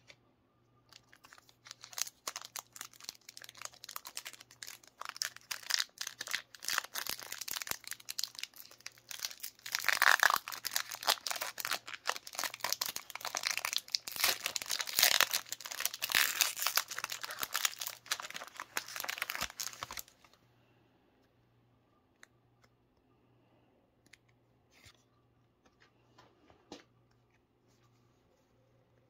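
Foil wrapper of a Pokémon trading-card booster pack crinkling and tearing as it is opened by hand, a dense crackle that is loudest midway and stops about twenty seconds in. After that only a few faint clicks of the cards being handled.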